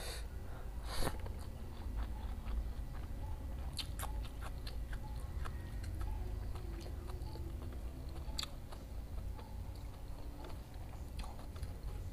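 Close chewing and biting of a mouthful of fried tofu and tempeh with sambal and vegetables: scattered crunches and wet mouth clicks, the loudest about a second in, over a steady low hum.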